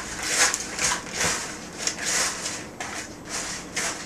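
Hands tossing and rubbing cut pita pieces coated in an oil, cheese and herb mixture in a large bowl: a series of irregular rustling swishes, several a second.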